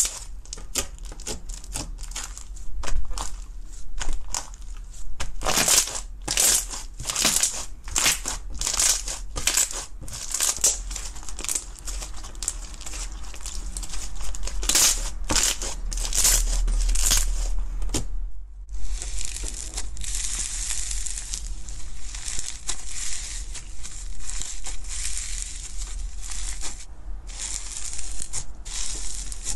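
Hands squishing and pressing slime, making rapid, irregular crackling pops and clicks. After a brief break about two-thirds of the way in, a second, fluffy textured slime is kneaded, giving a denser, more even crinkly crackle.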